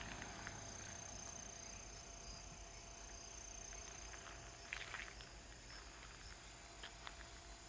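Faint outdoor ambience with insects, likely crickets, giving a steady high-pitched trill, and a few light clicks about five seconds in.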